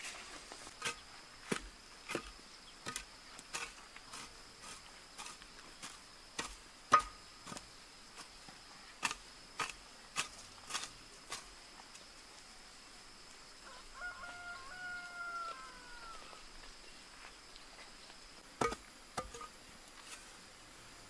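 Hoe blades chopping into soil in a raised vegetable bed, sharp strikes about one or two a second, then two more strikes near the end. A steady high insect drone runs underneath, and a rooster crows once, briefly, about two-thirds of the way through.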